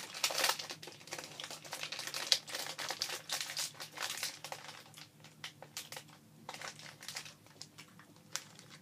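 A plastic Cadbury white chocolate buttons packet crinkling and rustling as it is handled, busiest in the first four seconds and sparser after, with a sharp tap near the end as the packet is set down on the floor.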